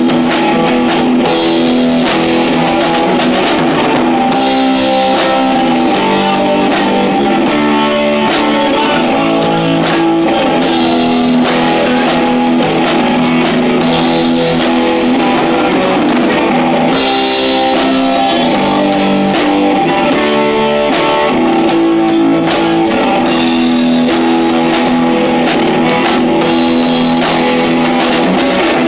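Rock band playing live: electric guitar, electric bass and a Pearl drum kit, with steady, regular cymbal strikes over the sustained guitar and bass notes.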